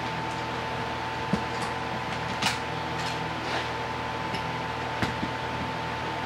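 Chrome-plated steel parallel bar clamps being set on a picture frame: a handful of separate sharp clicks and knocks as the clamps are handled and their jaws seated, over a steady background hum.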